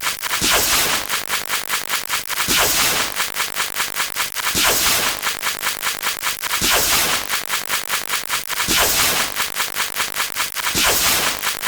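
Rapid-fire sound effects stacked on each other: a fast, even train of short crash-like clips, about a dozen a second. Roughly every two seconds a louder crackling burst comes through, with a falling sweep, five times in all.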